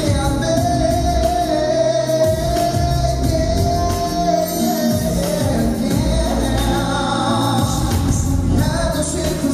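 A pop song performed live: a singer's voice over loud backing music with a heavy bass. About half a second in, a long high note is held for some four seconds.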